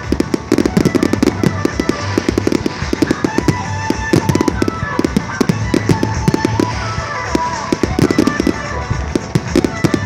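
Fireworks display: a dense, rapid run of bangs and crackling from shells bursting, with music playing under it.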